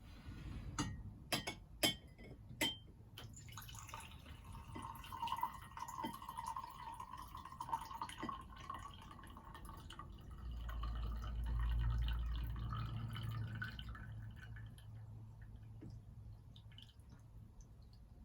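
A few sharp glass clinks, then hot lemon and honey drink poured into a glass for about ten seconds, its pitch creeping slightly upward as the glass fills. A low rumble joins in during the later part of the pour.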